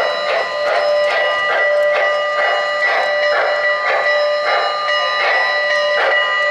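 Sound system of a Lionel O-gauge Norfolk & Western J-class steam locomotive: a steady chuffing about two to three times a second, with a long held multi-note steam whistle sounding over it.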